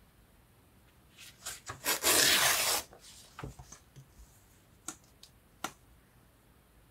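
A sheet of paper torn by hand: one rip lasting under a second, about two seconds in, with a few short crackles and ticks of paper handling around it.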